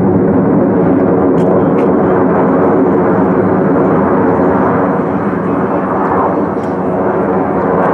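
Jet engine noise from a formation of U.S. Air Force Thunderbirds F-16 Fighting Falcons flying overhead. It is a loud, steady rumble that eases slightly about five seconds in, then swells a little again.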